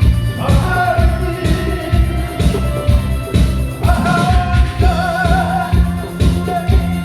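Upbeat pop-style music with a strong, even beat and a sung melody, the voice entering about half a second in and again about four seconds in with held, wavering notes.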